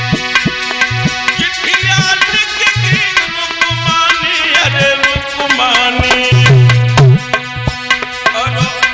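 Instrumental devotional music: a hand drum keeps a steady beat under a sustained chord, with a bending melody line over it. A heavier, held low drum note stands out about six seconds in.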